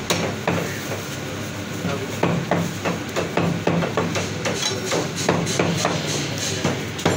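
Butcher's meat cleaver chopping lamb on a thick wooden stump block. It gives a steady run of sharp thuds, about two to three a second.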